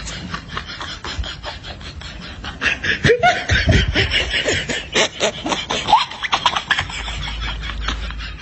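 A person laughing in quick pulses, loudest from about a third of the way in until near the end.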